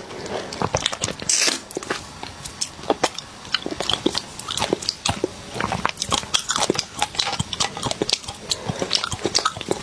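Close-up eating of spicy crab: crunching and chewing, with many quick, irregular cracks and clicks.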